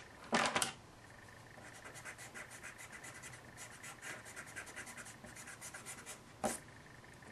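Pencil sketching on paper: a run of short, quick scratchy strokes, several a second, with a louder brief rustle about half a second in and another near the end.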